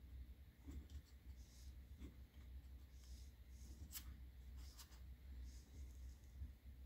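Very faint scratching and a few light clicks of a thin plastic stick working against small parts inside a drone's plastic body, over a low steady hum.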